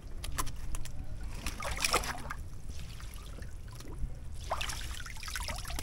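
Water trickling and splashing around a wire-mesh shrimp trap as it is moved through shallow water, with a few sharp splashes in the first two seconds and another near the end.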